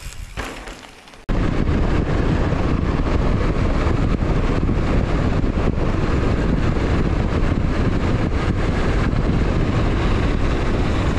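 Mountain bike descending a trail: a loud, steady rumble of tyres and bike over the ground, mixed with wind buffeting the camera microphone. It starts abruptly about a second in.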